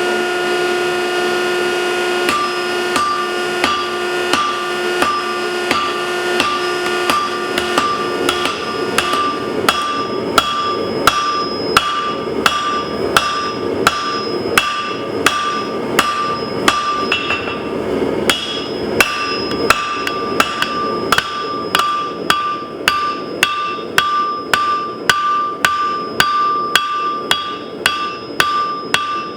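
Hand hammer striking steel on an anvil in a steady rhythm of about two blows a second, each blow ringing. A steady machine hum underlies the first third and then stops.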